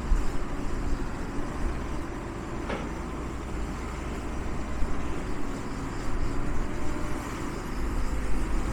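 Engine of an E-Z Crusher log baler running steadily, with one short click nearly three seconds in.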